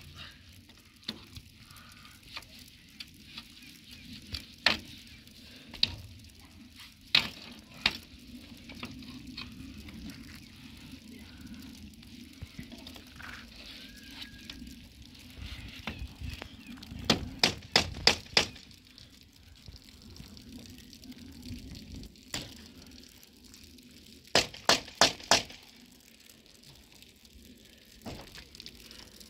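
Sharp knocks of a hand tool striking concrete curb blocks and stones: single strikes at first, then two quick runs of about five strikes each, over a steady hiss.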